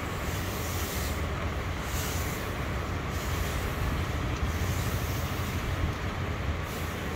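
Steam iron hissing in spurts that swell and fade every second or so as it is pushed over fabric, over a steady low hum.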